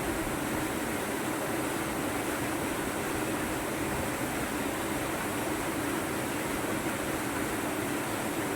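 Steady rushing of a swift, high-running river or waterfall. It is an even, unbroken noise with no pauses.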